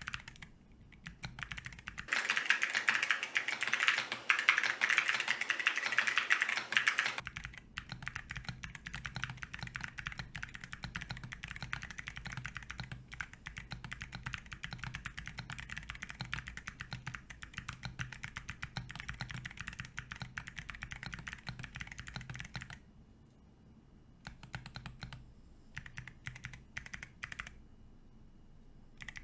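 Fast typing on a Monsgeek M7W mechanical keyboard with Zeal Clickiez clicky switches in click mode and MDA-profile keycaps, the board sitting directly on the desk without a mat: a dense stream of crisp key clicks. About two seconds in it turns louder and brighter for roughly five seconds, picked up by the camera's built-in mic, and in the last seconds the typing thins to short bursts with pauses.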